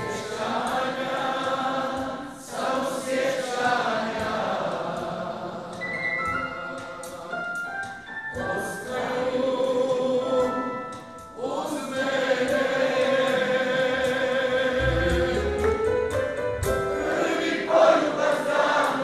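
Live band music with a male lead vocal and female backing singers: a held, sung melody over keyboard and drums.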